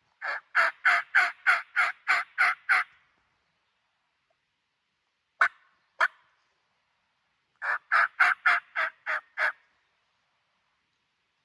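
Turkey call working a series of yelps: a run of about eight quick yelps, two single notes a few seconds later, then a run of about seven more.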